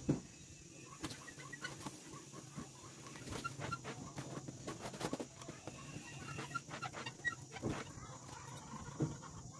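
Steel trowel scraping and slapping wet cement onto a baluster being shaped against a wooden profile board, with a sharp knock at the start and two more knocks near the end.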